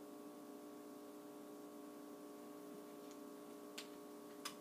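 Near silence: a faint, steady hum of room tone, with two short faint clicks less than a second apart near the end.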